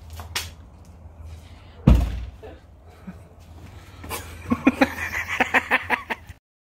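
An SUV's rear hatch slamming shut with one loud, heavy thud about two seconds in, over a steady low hum. Near the end comes a quick run of short, sharp sounds, and then the sound cuts off.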